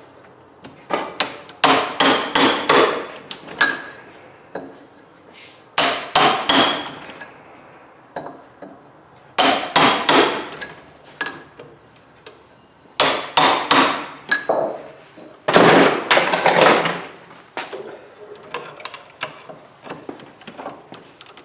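Hand hammer striking a punch or screwdriver set against copper motor windings, driving the coils out of the steel stator core. The strikes come in about five quick bursts of several blows each, with short pauses between.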